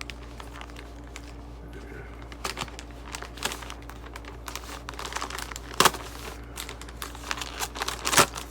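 Plastic mailer bag being torn open and handled, an irregular crinkling and rustling with a few sharper, louder crackles about six and eight seconds in.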